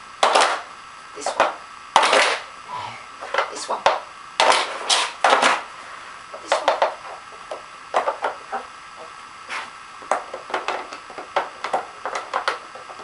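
Dog sniffing hard and nosing at a plastic Nina Ottosson Dog Twister puzzle toy, with irregular short sniffs mixed with clicks and scrapes of the plastic pieces.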